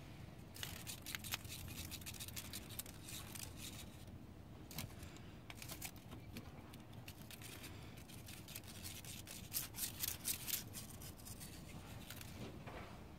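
Quick clusters of crisp clicks and rustles from a dry grass stalk being batted, grabbed and bitten by a playing cat, loudest about ten seconds in.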